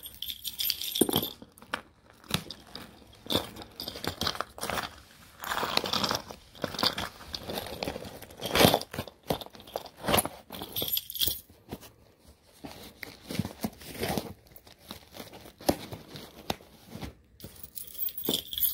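Packing tape on a cardboard shipping box being slit and torn open: irregular scraping and ripping strokes with short pauses between them.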